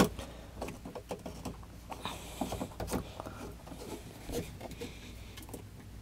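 Faint scattered clicks, scrapes and rustles of hands refitting the boat air-conditioning system's intake water filter and tightening it back down in a floor hatch.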